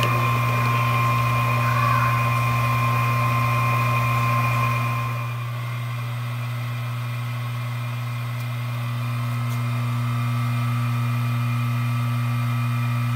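Electric transfer pump running steadily with a deep hum, pumping biodiesel from the processor into the bottom of a finishing tank; a higher whine over the hum fades about five seconds in.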